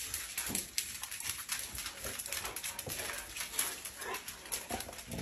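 A dog whimpering softly a few times, amid many quick clicks and taps.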